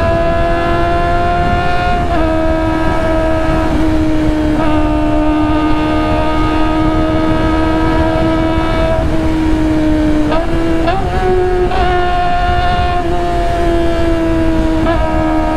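Sport motorcycle engine running at high, fairly steady revs while riding, a high engine note over heavy wind rush, its pitch stepping down or up a few times with throttle and gear changes.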